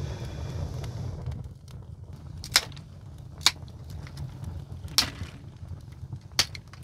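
Four sharp knocks, one to one and a half seconds apart, over a steady low rumble.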